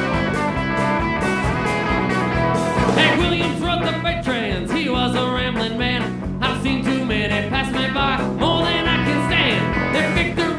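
Live rock band playing an instrumental passage: electric guitar over electric bass and a drum kit. From about three seconds in, the guitar's notes slide up and down in pitch.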